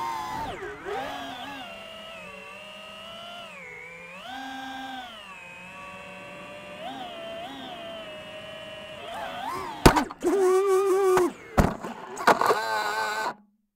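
Brushless motors and propellers of an iFlight Titan XL5 five-inch FPV quadcopter whining, rising and falling in pitch with the throttle. About ten seconds in, a sharp knock as it crashes, then loud buzzing with more knocks as the spinning props strike grass and brush, before the recording cuts off suddenly.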